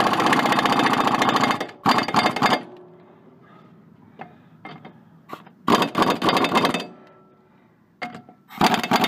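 Impact wrench with a socket on a mower blade bolt, running in rattling bursts: a long burst at the start, a short one about two seconds in, another around six seconds in and one near the end, with quieter gaps between.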